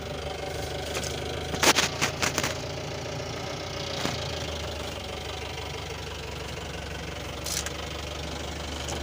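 Mahindra Supro's engine idling steadily. Over it comes a quick run of sharp clicks about two seconds in, and one more click near the end, as the wiring is handled.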